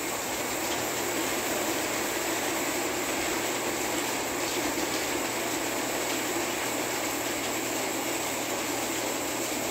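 Model train running on the layout's track: a steady rolling noise of its wheels and motor, with a faint steady low hum underneath.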